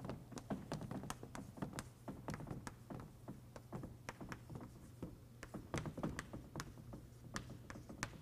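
Chalk writing on a blackboard: an irregular run of light taps and short scrapes, several a second, as letters are drawn.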